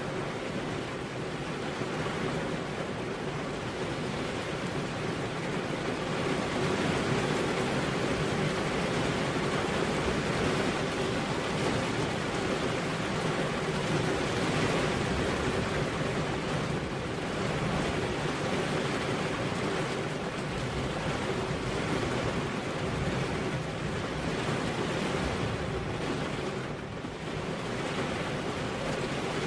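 Heavy rain pouring steadily onto a road, an even rushing hiss with no thunder.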